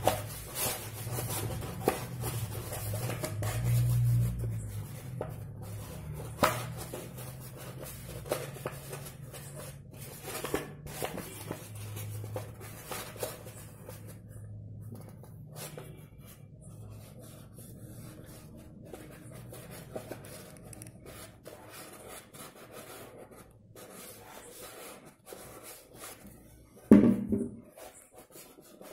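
Stiff white chart paper rustling and crackling as it is rolled and pressed into a cone by hand, with scattered small clicks. A short loud thump comes about 27 seconds in.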